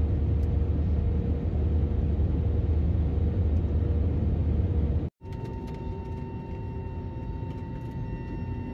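Jet airliner cabin noise: a steady, loud low rumble. About five seconds in it cuts to a quieter steady hum with several high, even whining tones.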